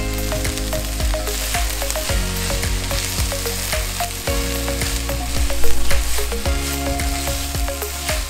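Vegetables sizzling in a hot enamelled pot while a spoon stirs and tosses them, with frequent clicks and scrapes of the spoon against the pot.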